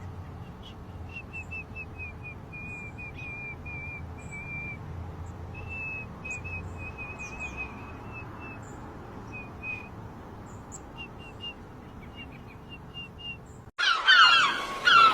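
Bird-like chirping: runs of short, high chirps at a steady pitch, broken by brief gaps, over a low hum. Near the end it cuts suddenly to much louder calls that glide up and down in pitch.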